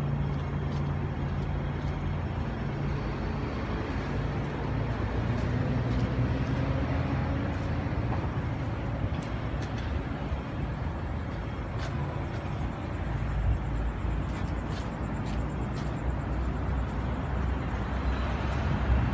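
Steady low rumble of engines and road traffic, with a low steady hum that fades after the first several seconds.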